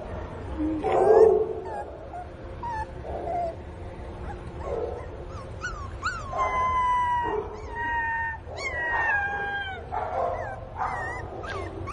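A puppy crying: a string of high-pitched whines and yelps, most falling in pitch, with a louder, lower cry about a second in and two long drawn-out whines in the second half. It is the distress crying of a puppy missing its mother.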